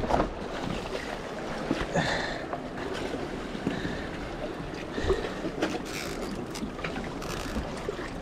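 Wind buffeting the microphone over sea water lapping among concrete tetrapods, with a few brief faint rustles and knocks.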